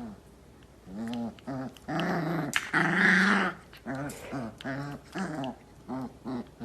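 A dog growling and grumbling in a run of short vocal sounds, about two a second, with a longer, louder one about three seconds in.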